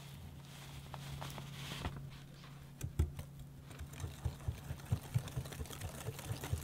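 Dry muffin mix pouring into beaten egg with a soft rustle, then a wire whisk beating the batter by hand in a glass bowl. From about three seconds in, its wires click against the glass about four times a second.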